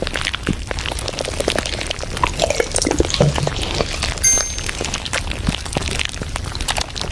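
Rapid, irregular clicks of taps on a phone's on-screen keyboard as a message is typed. A short, high tone sounds once about four seconds in.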